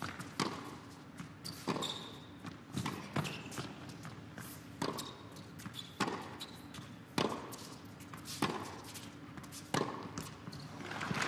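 Tennis rally on an indoor hard court: the ball struck back and forth by racquets, a sharp hit about every second, with short shoe squeaks on the court between shots. Near the end a swell of crowd cheering and applause rises as the point is won.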